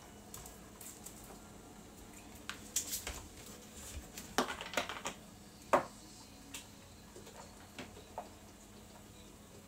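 Scattered clinks and knocks of kitchen things being handled, such as dishes, a glass and utensils, with the loudest a single sharp knock about six seconds in.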